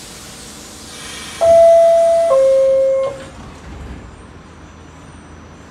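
NYC subway R46 car's two-tone door-closing chime, a higher tone followed by a lower one, each just under a second long, over a hiss. It is the signal that the doors are about to close.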